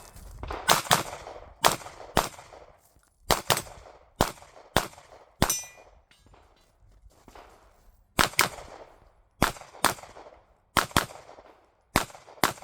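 Pistol shots fired in quick pairs, each target getting two rounds, with a pause of about two and a half seconds midway before the shooting resumes.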